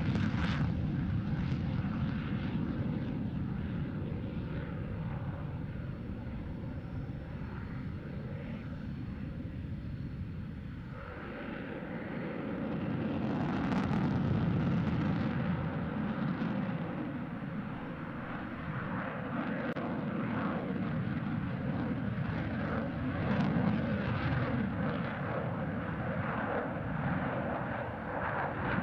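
Twin General Electric F110 turbofans of a Boeing F-15QA fighter jet passing overhead in a high-performance display: a loud, crackling jet rumble. It fades over the first ten seconds, swells again after about twelve seconds, and builds once more near the end.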